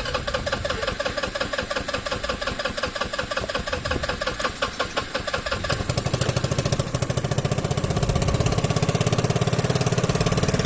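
Small motorcycle engine running with a fast, even firing beat. About halfway through the sound shifts to a lower, steadier and slightly louder note.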